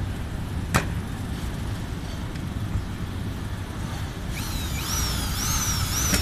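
Steady, fluctuating low rumble of wind on the microphone. A single sharp click comes about a second in, and in the last two seconds a run of high whistling glides rises and falls several times.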